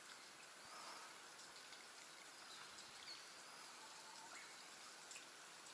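Near silence: faint outdoor ambience with a few brief, faint bird chirps.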